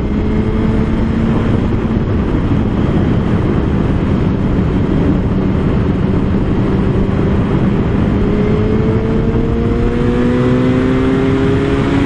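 2015 Suzuki GSX-R1000's inline-four engine running at road speed under wind and road noise. The engine note climbs slowly over the last few seconds as the bike gently gains speed.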